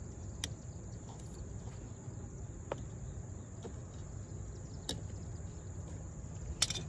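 Small plastic clicks from a door puddle-light housing and its connector being handled: a few single clicks, then a quick cluster near the end. Behind them are a steady low rumble and a steady high-pitched tone.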